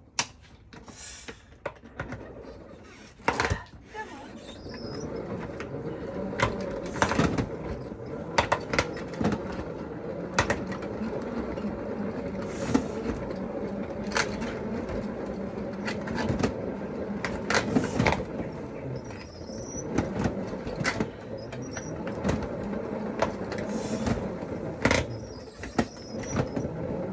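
Hand-cranked spin dryer of a mini manual washing machine spinning: a few knocks, then a steady whirring starts about four seconds in, with frequent clicks and rattles from the plastic unit vibrating.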